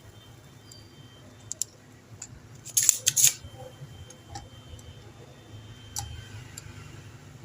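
Hand tools clicking and snapping against small parts while a part is swapped in an electric water heater. There are a few separate sharp clicks, with a louder cluster of snaps about three seconds in.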